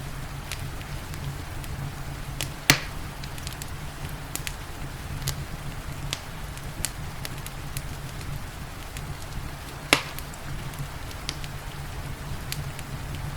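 Wood fire crackling in a fireplace: scattered sharp crackles over a steady low rumble, with one loud pop a few seconds in and another about ten seconds in.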